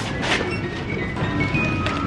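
Small music box playing a tinkling tune of short, high, bell-like notes.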